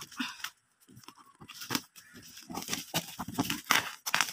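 Scissors cutting into a plastic courier bag, the plastic crinkling and rustling in irregular crackles that start about a second in.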